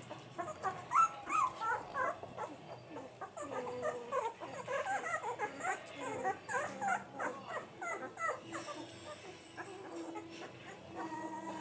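A litter of week-and-a-half-old German Shorthaired Pointer puppies calling with many short, overlapping squeaks and whines that bend up and down in pitch. The calls are busiest through the first eight seconds and thin out toward the end.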